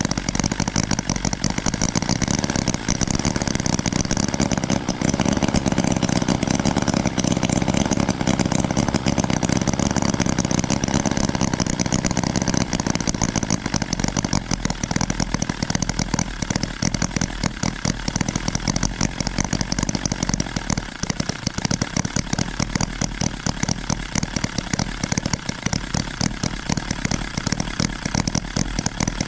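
12 cc inline four-cylinder model engine, a replica of the Holt 75, running steadily with rapid, even firing. It runs a little heavier for several seconds early on, then settles lighter.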